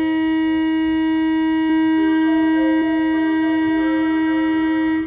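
Electric train's horn sounded in one long steady blast of a single pitch, cutting off suddenly about five seconds in, over faint background music.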